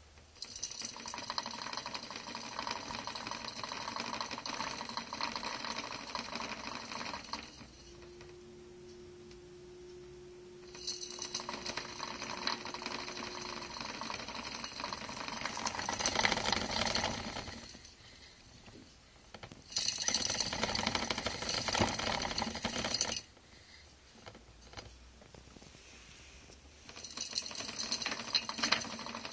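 Clear plastic hamster wheel whirring and rattling on its stand as Roborovski dwarf hamsters run in it, in four runs of a few seconds each that stop and start again.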